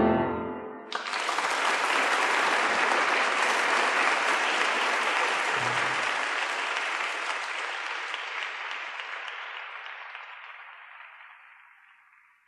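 The final chord of two grand pianos dying away, then audience applause breaking out about a second in and fading away near the end.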